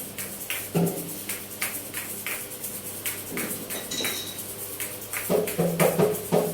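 Kashaka (asalato), two seed-filled shells on a cord, swung so they clack together and rattle, giving a steady run of about three sharp clacks a second.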